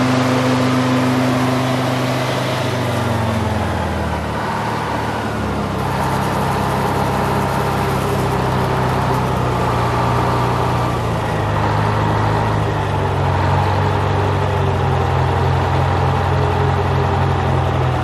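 Detroit Diesel engine driving a Frick circular sawmill being throttled down: its pitch falls over a few seconds, drops again about eleven seconds in, and settles into a slower steady run.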